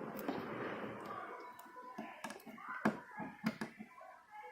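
Faint handling sounds: hands working small plastic front-panel connectors onto the motherboard's header pins. A few sharp clicks and ticks come at uneven times in the second half.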